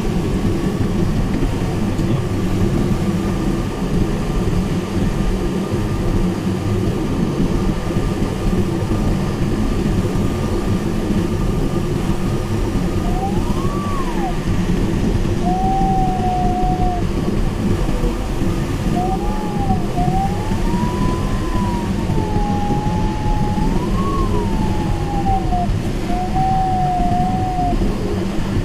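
Steady rush of airflow around the canopy of a Mini Nimbus HS7 sailplane in flight, heard from inside the cockpit. From about halfway in, the electronic variometer's tone slides up and down in pitch with a couple of steady lower stretches, following the glider's changing rate of climb and sink.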